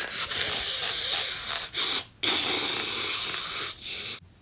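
Steady hissing, as of a lit bomb fuse, in two long stretches with a short break about two seconds in.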